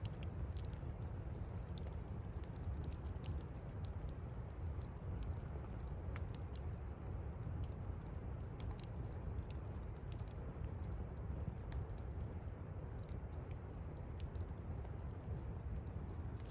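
Fire crackling: irregular small pops and snaps over a steady low rumble.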